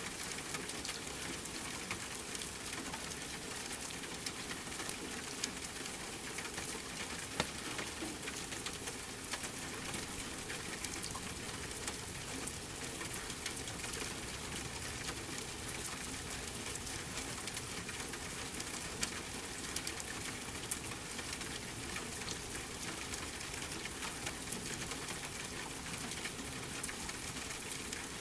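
Steady rain falling, mixed with a crackling wood fire: a constant hiss of rain with frequent small sharp crackles and an occasional louder pop.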